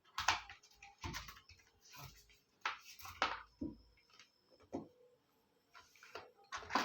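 Handling sounds while unboxing a smartwatch: a string of irregular light knocks, clicks and rustles as the watch straps and packaging are picked up and set down.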